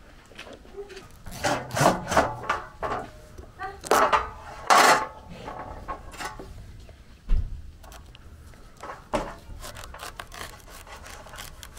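A knife sawing and scraping through the hard rind of a pumpkin in a run of rasping strokes, loudest in the first half, with lighter cuts near the end and a dull knock a little past the middle.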